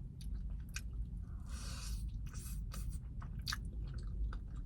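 Close-miked chewing of a mouthful of mac and cheese: soft, wet mouth clicks and smacks, with a short hiss about one and a half seconds in.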